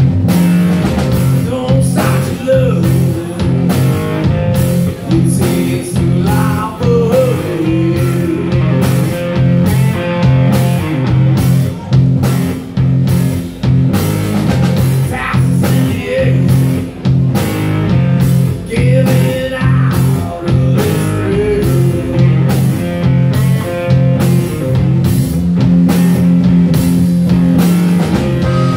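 Live blues-rock band playing: electric guitar, bass guitar and drum kit with a steady beat of cymbal hits, with a wavering lead line over it.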